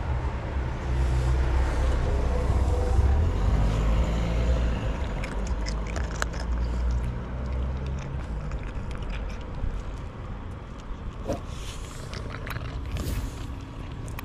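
Domestic tabby cat purring very loud right by the microphone, a low rumble that fades about halfway through, while it crunches dry kibble in a run of sharp little clicks.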